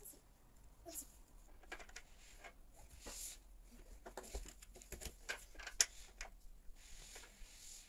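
Scattered light clicks, taps and rustles of small objects and packaging being handled, with a sharper click about six seconds in.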